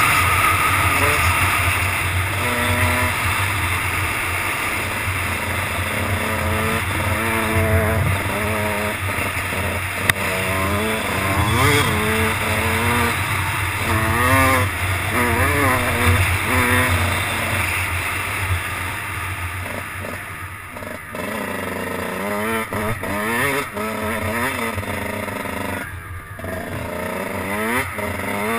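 Kawasaki motocross bike engine under way on a dirt trail, its pitch rising and falling again and again as the throttle opens and closes. Low wind rumble sits under it on the helmet-mounted microphone. The engine drops off twice in the last third.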